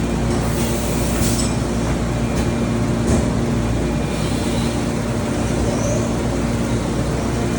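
Shop machinery running: a steady mechanical hum with a low steady tone, and a few faint clicks, one about a second in and one about three seconds in.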